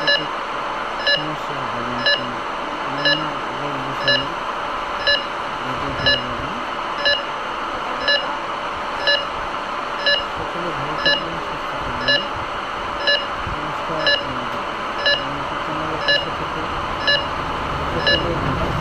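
Bedside patient monitor beeping steadily, a short high beep about once a second, over a steady background hiss.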